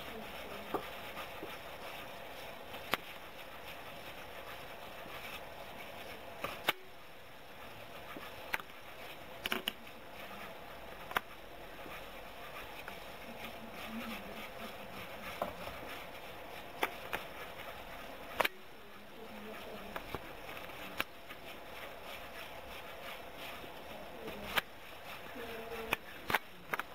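Faint scraping and rubbing on a ceramic pottery bowl worked by hand, with irregular sharp clicks over a steady hiss.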